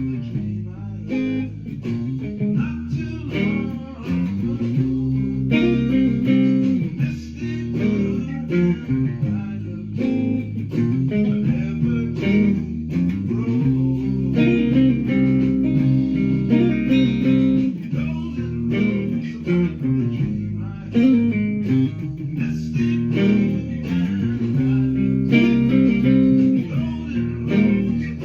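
Guitar music over a bass line: an instrumental passage of picked notes with no singing.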